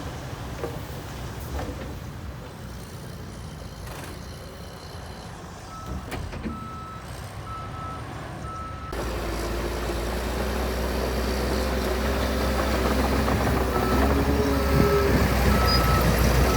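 Diesel engine of a heavy earthmoving machine running, with a reversing alarm beeping about twice a second at a single pitch. About halfway through the engine rumble suddenly gets louder and keeps building, with the backup beeper sounding again near the end.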